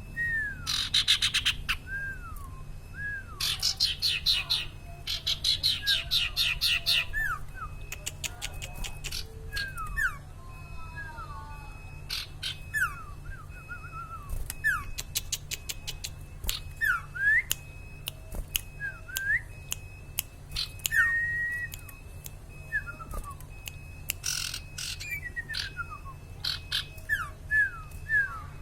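A sirtu (cipaw) songbird singing busily: repeated short down-slurred whistles mixed with several fast, rattling trills, the trills loudest in the first seven seconds. A low steady hum runs underneath.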